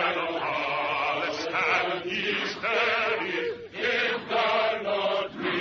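Many men's voices chanting together in a massed war chant, the Zulu warriors' chant, with wavering pitch and swells in loudness.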